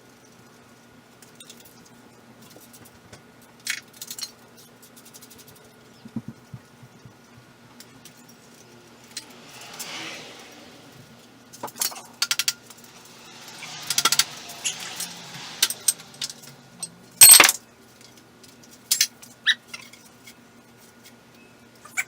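Metal hand tools and parts clinking and clanking now and then, with a couple of short scraping sounds. The loudest is one sharp metallic clank about three-quarters of the way through.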